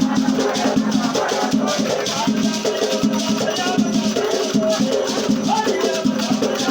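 Batuque ritual music: drums and a shaken rattle keep a fast, steady beat while voices chant over it.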